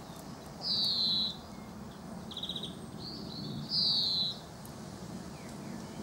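European greenfinch calling: two drawn-out calls about three seconds apart, each falling slightly in pitch, with a short rapid trill between them.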